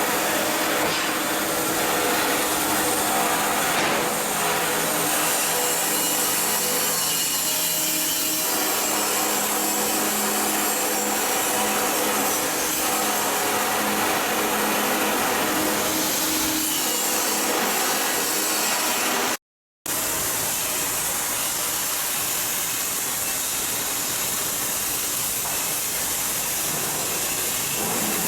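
Continuous loud shipyard work noise of tools and machinery on the hull blocks, a steady rushing din with faint steady hums in it. Near two-thirds of the way through it cuts out completely for an instant, then carries on.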